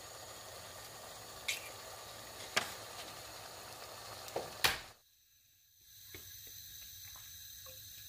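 Eggs and tomato slices frying in hot oil in a nonstick pan: a steady sizzle with four sharp pops of spattering oil, the last two louder. It cuts off about five seconds in, and after a moment of near silence a much fainter hiss with a few light ticks comes from a pan with fresh oil in it.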